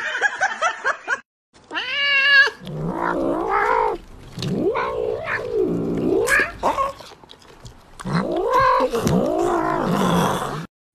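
Tabby cat yowling in a string of long, drawn-out wails that rise and fall in pitch, after a brief gap about a second in.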